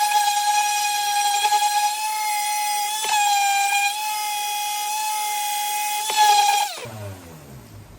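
Electric sander with 100-grit paper running with a steady high whine, then switched off about seven seconds in, the motor winding down with a falling pitch.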